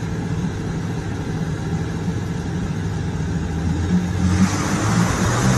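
Off-road 4x4's engine running steadily, getting louder with a rising hiss about four seconds in.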